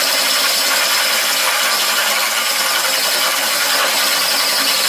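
Drill with a right-angle drive boring a twist bit up into the underside of a steel beam to widen an existing hole: a steady, loud, crunchy grinding of the bit cutting steel, with the drill motor running under load.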